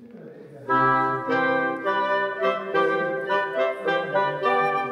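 Instrumental music with a melody of held notes on a wind instrument, starting abruptly under a second in.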